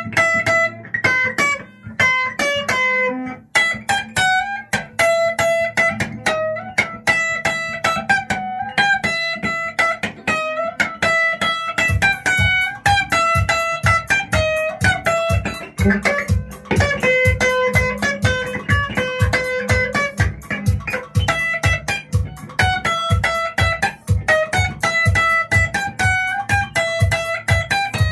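Band instrumental: an electric lead guitar picks a fast, repeating high melody over bass guitar, and a steady drum beat comes in about twelve seconds in.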